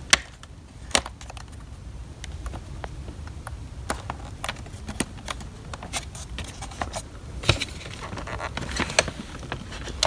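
Scattered sharp plastic clicks and small knocks, a dozen or so at uneven intervals, as hands press a plastic clip on a Dyson DC24 vacuum's cleaner head into place; the clip does not snap home cleanly.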